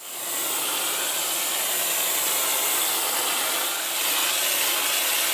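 Aerosol can of whipped topping spraying in one long steady hiss, easing slightly about four seconds in.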